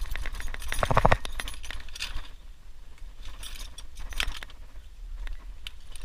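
Small metal objects clinking and jingling in a scatter of light clicks, with a brief pitched sound about a second in.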